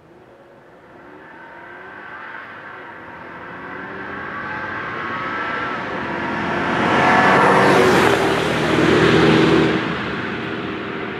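Stock 2005 Mercedes-Benz E55 AMG's supercharged 5.4-litre V8 accelerating toward and past, its engine note rising in pitch as it grows steadily louder. It is loudest from about seven to nine and a half seconds in as the car goes by, then fades as it drives away.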